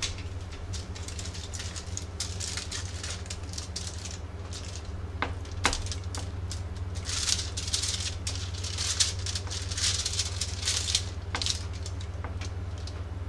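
Hands rubbing oil and seasoning into raw lingcod fillets on a foil-lined baking sheet: irregular crinkling and rustling of the aluminum foil and wet rubbing of the fish, busiest in the second half, over a steady low hum.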